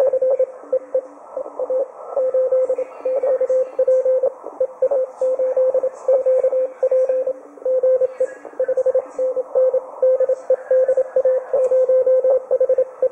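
Amateur Morse code (CW) heard through a Perseus software-defined radio receiver on the 40-metre band: a strong single-pitched tone keyed on and off in fast dots and dashes. A fainter, lower-pitched station keys now and then underneath, over a narrow band of shortwave hiss. This is contest traffic from a CW test.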